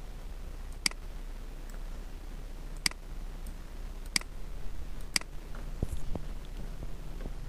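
Four sharp computer mouse button clicks, a second or two apart, followed by a few softer taps, over a low steady hum.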